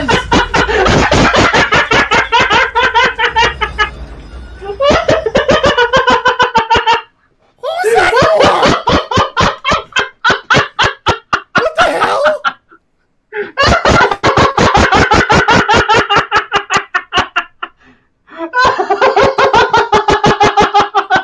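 Two men laughing hard and helplessly in several long, rapid bouts, each broken by a short pause for breath.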